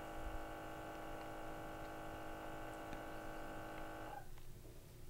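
A Trak-It IIIa multi-gas detector makes a steady, many-toned motor hum during its auto-zero. The hum cuts off sharply about four seconds in, as the auto-zero finishes.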